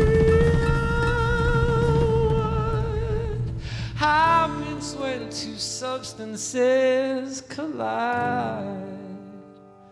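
Live band music: the band holds a sustained chord for about three seconds, then a male voice sings over sparse accompaniment. The music fades away near the end.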